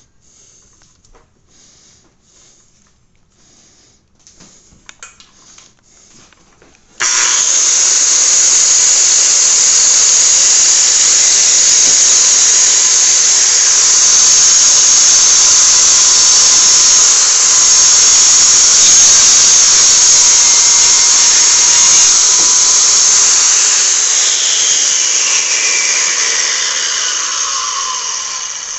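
Makita 5007MG corded 7-1/4" circular saw with a 24-tooth blade starting suddenly about seven seconds in, after a few faint handling clicks, and running loud and steady through the first cut of its new blade. Near the end the pitch falls and the sound fades as the trigger is released and the blade winds down.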